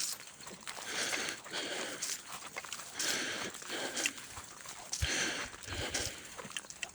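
Footsteps walking along an outdoor path: a steady run of short scuffing steps, about one to two a second.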